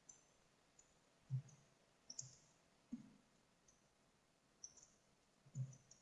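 Faint, irregular clicking of a computer mouse: a dozen or so small clicks with a few duller taps among them, the loudest just over a second in and near the end.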